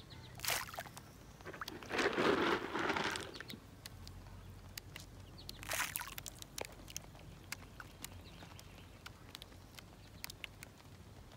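Small fish, mostly bream, feeding at the pond surface on floating pellets: a steady run of small pops and ticks as they snatch the pellets, with louder bursts of splashing and pattering about half a second in, at around two to three seconds, and near six seconds.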